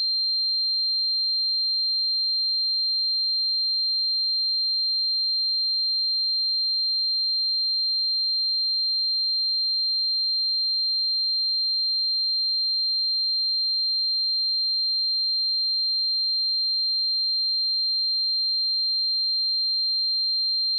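Pure 4168 Hz sine-wave test tone, one steady high-pitched beep held at constant level without a break.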